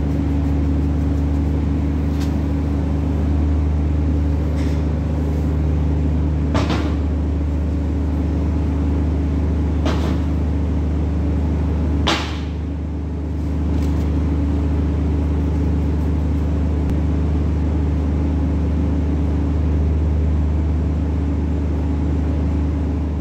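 A steady low mechanical drone with several fixed pitches, like a running motor, with a handful of short sharp clicks in the first half.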